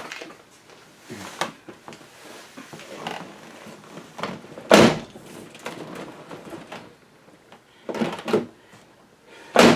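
1999 GMC Yukon passenger door and latch clunking: one loud door thud about halfway through and sharper latch knocks near the end as the repaired inside handle is tried, between quiet rustling of someone moving in the seat.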